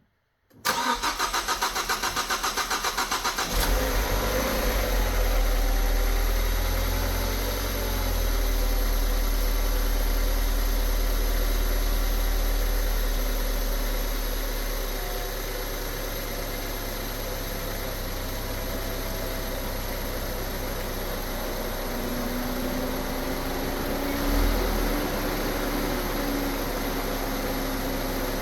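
Ford Focus ST's 2.0 L EcoBoost four-cylinder being cold-started for the first time after a timing chain replacement. The starter cranks for about three seconds before the engine catches. It then settles into a fast idle that drops lower about halfway through, with a brief rise near the end.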